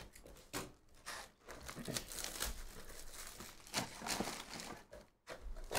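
Plastic shrink-wrap crinkling and tearing as it is pulled off a cardboard trading-card box, in an uneven run of crackly rustles.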